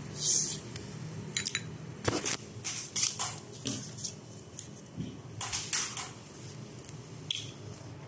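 A spoon scraping and scooping cookies-and-cream ice cream in a bowl: a dozen or so short, sharp scrapes and crunches at an uneven pace, with a pause around the fifth second.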